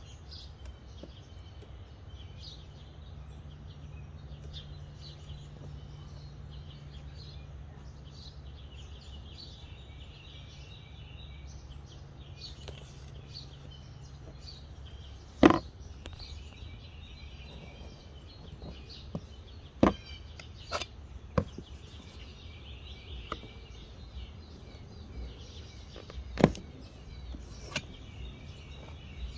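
Birds chirping in the background, with a handful of sharp knocks from about halfway through, the loudest one just past the middle and another loud one near the end.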